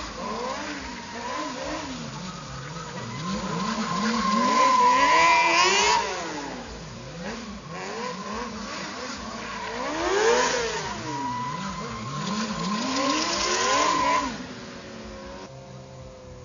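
Two stunt sport motorcycles, their engines revving up and down again and again, with a steady tire squeal from a spinning rear tire. The squeal swells twice and cuts off sharply, about six and fourteen seconds in.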